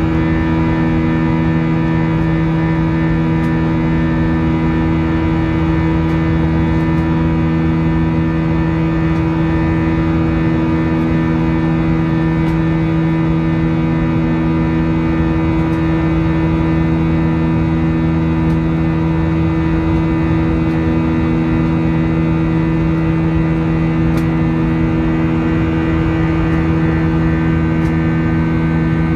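Jet airliner cabin noise during the climb after take-off: the engines and rushing air make a loud, steady drone with several held hum tones that do not change.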